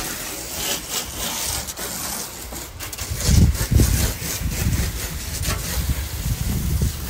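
Water from a hose spraying onto concrete pavement, a steady hiss, with a louder low rumble on the microphone about halfway through.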